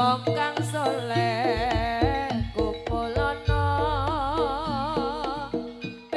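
Jaranan gamelan music: a melody with wide, even vibrato over struck metallophone notes and drum strokes. A run of deep drum thuds comes about a second and a half in, and a long low booming tone hangs on from about halfway.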